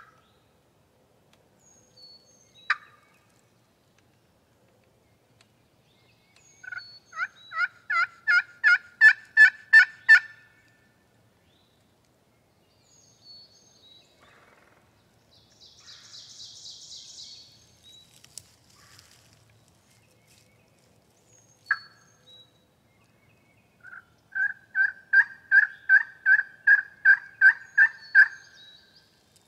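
Wild turkey yelping: two long series of evenly spaced yelps, about three a second, each series building louder. A single sharp note comes a few seconds before each series.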